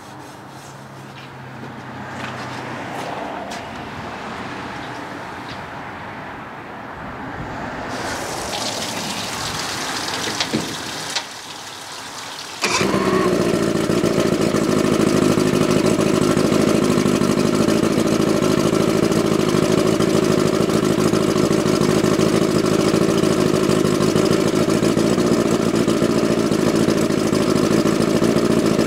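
Two-stroke outboard motor starting about twelve seconds in and then running steadily at idle. Before it catches there are quieter handling sounds and a couple of sharp knocks.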